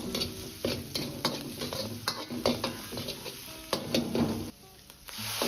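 Metal utensil scraping and knocking against a wok as minced pork, dried chili segments and chili sauce are stir-fried, sizzling in the oil. The clinks come irregularly, about two a second, and stop shortly before the end.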